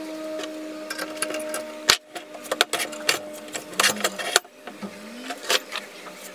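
Irregular clicks and clanks of steel parts being handled: a drill press table with a steel arc C-clamped to it is turned over and set down. A faint steady hum runs underneath.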